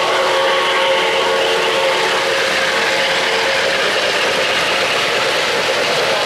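O-gauge model trains running on Lionel FasTrack three-rail track: a steady mechanical whir and clatter of wheels and geared motors. A steady whine fades out about two seconds in.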